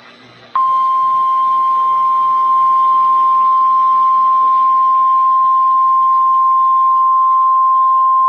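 NOAA Weather Radio 1050 Hz warning alarm tone: a single steady tone that comes on sharply about half a second in, after faint radio hiss. It is the signal that a warning message follows.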